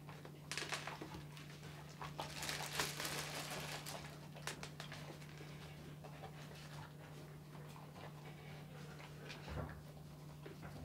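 Weimaraner puppy eating food off a feeding mat: snuffling breaths with small scattered clicks of chewing. A steady low hum runs underneath.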